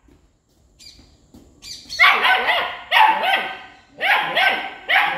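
German shepherd puppy barking: a run of high-pitched puppy barks, coming in quick pairs about once a second, starting about two seconds in.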